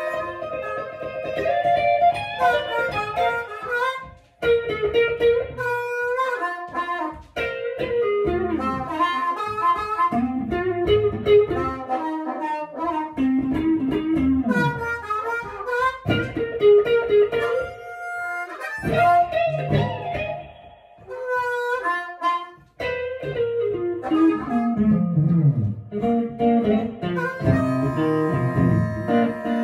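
Blues played on electric guitar and harmonica, the harmonica cupped to a corded handheld microphone, with bent notes and a few short breaks between phrases.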